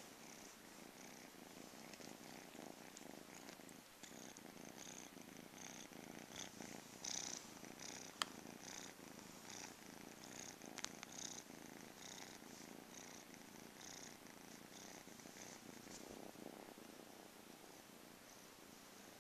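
Domestic cat purring softly close up, pulsing about twice a second. Two sharp clicks stand out, about eight and eleven seconds in.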